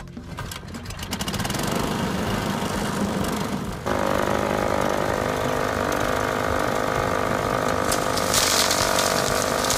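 Keene G-Force impact mill running as a rock crusher: it winds up over the first couple of seconds, then steps up suddenly about four seconds in to a steady, loud running note with hiss. A harsher hiss joins near the end.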